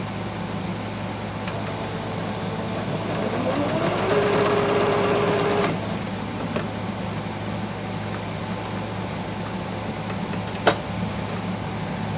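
Singer electric sewing machine running a test stitch: the motor speeds up with a rising whine, runs steadily for about two seconds, then stops abruptly. A single sharp click comes near the end, over a steady background hum.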